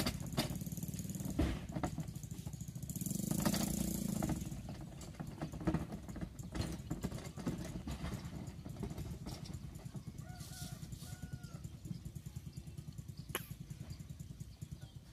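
An engine running at a steady idle, slowly fading, with scattered knocks and clatter. There is a brief louder rush of noise about three to four seconds in.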